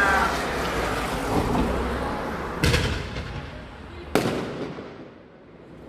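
Fireworks bursting: two sharp bangs about a second and a half apart, near the middle.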